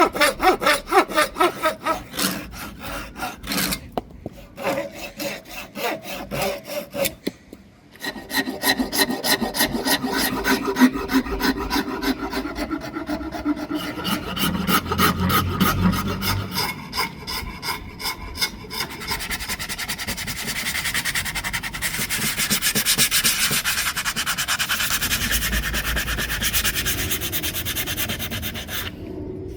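Hand rasp or file worked back and forth on a hardwood axe handle, shaping it with rapid rubbing strokes about four a second. There are brief pauses, and in the last third the strokes run together into a smoother, steadier rubbing.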